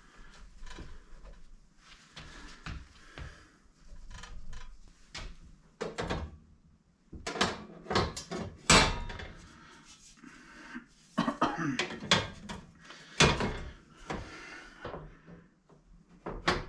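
Clanks, knocks and scrapes of a Detroit Jewel gas stove's enamelled steel cooktop panel and burner parts being lifted off, handled and set back down, irregular, with the loudest knocks about eight and thirteen seconds in.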